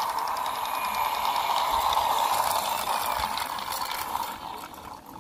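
Small plastic toy road roller's gear motor whirring with a fast ratcheting tick as the toy rolls along concrete, then dying away near the end.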